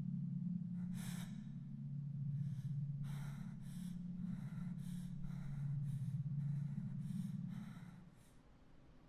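A woman breathing in short, uneven gasps and sighs, about a dozen breaths, over a low steady hum that fades out about eight seconds in.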